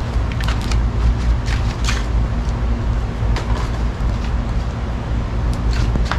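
Freshly lit tinder fire crackling with irregular sharp pops, about a dozen over the few seconds, over a steady low rumble.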